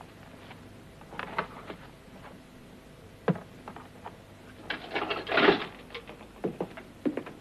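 Handling noises at a wall of small metal safe-deposit lockers: a bag pushed into a compartment and the little metal door shut with a sharp click about three seconds in. Around five seconds in there is a louder scraping rustle, and near the end a few clicks as a room door opens.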